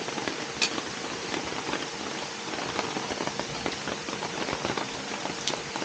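Steady rain falling on a surface: an even hiss with many separate sharp drop ticks.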